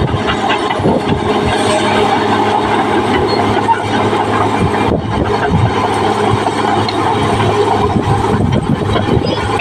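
Caterpillar D6R XL bulldozer's diesel engine running steadily: a low hum with a dense rattle over it.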